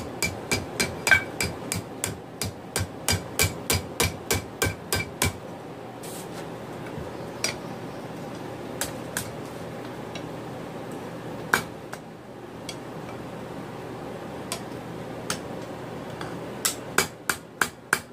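Hand hammer striking hot 5/16-inch round steel bar on an anvil, bending it into a hook, each blow ringing. A quick run of about three strikes a second for the first five seconds, then a few scattered blows, then another quick run of strikes near the end.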